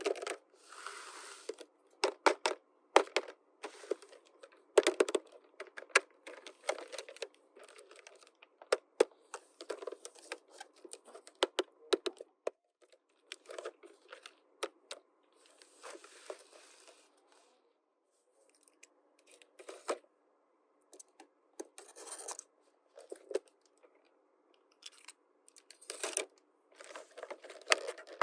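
Unboxing a miniature toy playset by hand: plastic packaging tearing and crinkling, mixed with sharp clicks and taps of small plastic pieces. The sounds come in irregular bursts with short pauses.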